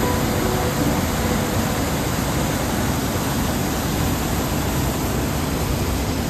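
Steady roar of rushing water from a creek or waterfall: an even, continuous rush with no pauses.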